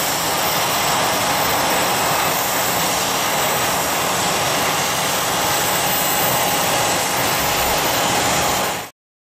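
Steady rush and whine of jet turbine noise from business-jet engines or auxiliary power on the apron. It cuts off suddenly near the end.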